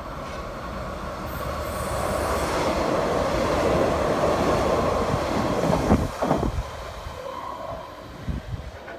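A red RBS (Regionalverkehr Bern-Solothurn) electric commuter train runs past close by, its wheels rumbling on the rails. The sound grows louder as it passes, two sharp clacks come about six seconds in, and then it fades.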